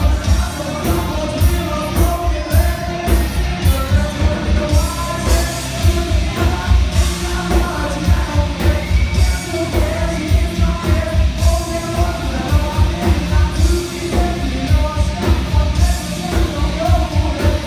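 Rock band playing loud: pounding bass and drums with regular cymbal hits under a sung vocal line.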